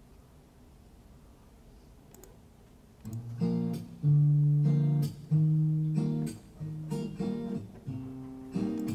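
Acoustic guitar opening a song, played back through the room's speakers: after about three seconds of quiet room tone, it comes in with a series of plucked and strummed chords.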